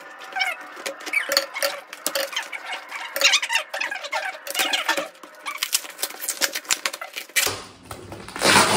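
Fast-forwarded sound of a cardboard box being cut open with scissors: rapid clicks, snips and rustling of cardboard and packing tape, with squeaky high-pitched sped-up voices. Normal speed returns about seven and a half seconds in, with a loud rustle near the end.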